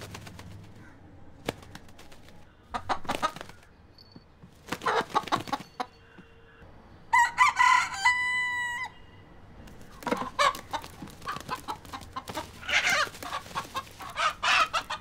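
Broiler rooster crowing once midway through, a held call of about a second and a half, with short sharp clucks and squawks scattered before and after it.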